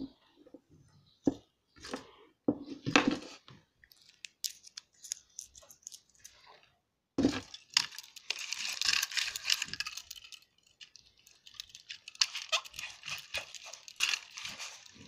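A sticker being peeled and scratched off a small toy keychain bus, with scattered taps and clicks of handling at first. About seven seconds in, a long stretch of scratchy crackling peeling starts, and a second one follows a couple of seconds later.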